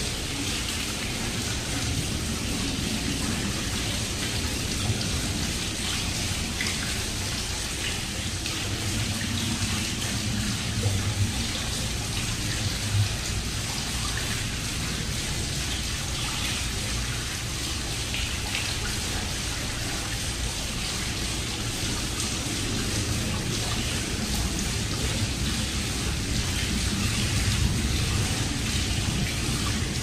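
Water fountain splashing steadily, a continuous even hiss of falling water.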